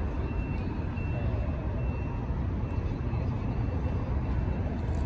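Jet engines of airliners on the airfield, a steady low rumble, with a faint high whine that comes and goes.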